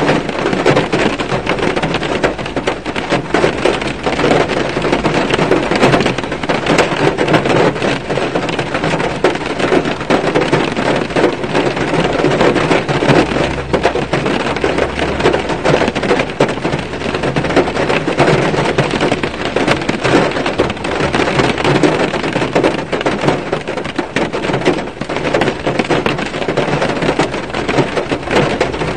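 Rain pattering on a car's roof and glass, heard from inside the car: a dense, steady patter of drops. A low rumble runs underneath for several seconds in the middle.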